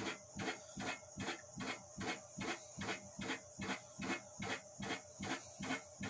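Whale Gulper 220 diaphragm shower sump pump running, its strokes making a fast, even pulsing rhythm as it pumps water out of the shower tray.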